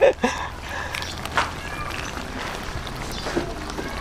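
Pork innards simmering in broth in a wok over a wood fire, a steady soft bubbling hiss, with a short knock about a second and a half in.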